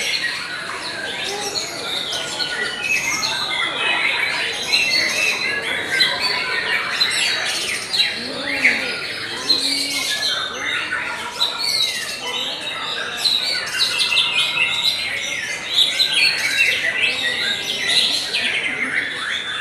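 White-rumped shamas singing in a dense, unbroken chorus of overlapping whistles, trills and harsh notes.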